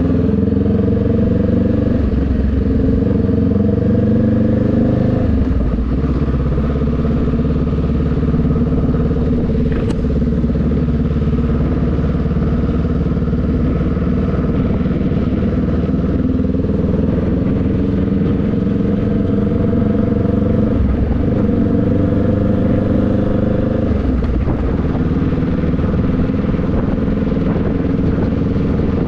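Motorcycle engine running while riding, its pitch dropping and rising as the speed changes, over a steady hiss of rain and wet road.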